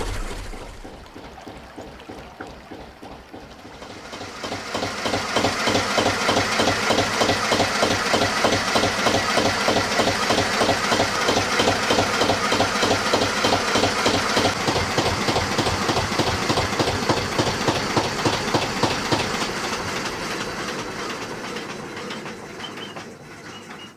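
Slow, vintage Petter McLaren B2 diesel engine running in gear at a steady rhythmic beat while warming up. It is quieter for the first few seconds, then much louder and closer from about four seconds in, and eases off over the last few seconds.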